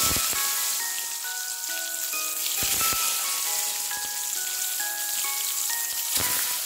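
Brinjal (eggplant) slices sizzling in hot oil in a steel kadai. The sizzle flares as a slice drops in at the start, and again about three seconds in and near the end as more slices go in. A simple melody of single chiming notes plays along as background music.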